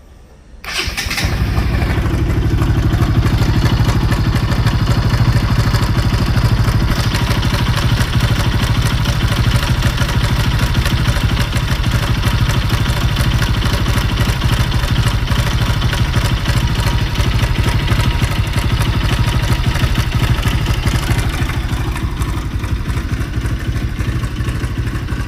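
Bajaj Pulsar NS200 BS6 single-cylinder motorcycle engine started about a second in, then idling steadily with a clattery mechanical noise on top, an irritating engine noise whose cause the owner does not know. The upper rattle eases off a little near the end.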